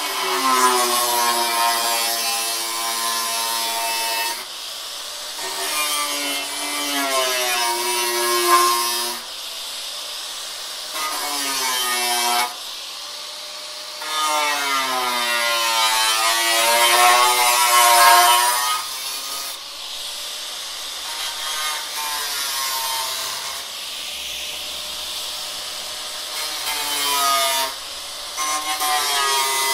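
Hitachi angle grinder cutting metal in about six passes, separated by quieter stretches. Its whine sags in pitch and climbs back as the disc bites into the metal and eases off, over a bright, gritty hiss from the cut.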